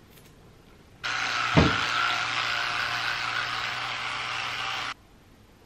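Electric toothbrush buzzing steadily while brushing teeth, starting about a second in with a brief knock soon after, then cutting off suddenly near the end.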